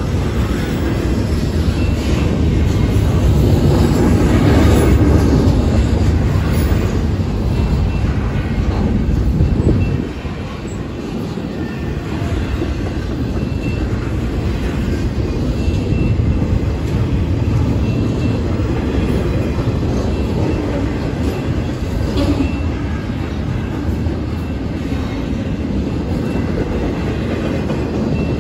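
A train rolling past with a steady rumble of wheels on rail. It is loudest for the first several seconds, drops suddenly about ten seconds in, then runs on steadily.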